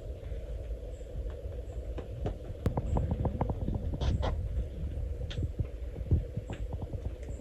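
Many small irregular knocks and clicks over a low steady rumble, busiest in the middle.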